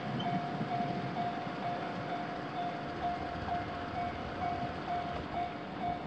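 Japanese railway level-crossing warning signal ringing: a single-pitched electronic ding repeating about twice a second, the alarm that sounds while a train is approaching and the crossing is closed. A low traffic rumble runs underneath, strongest at the start.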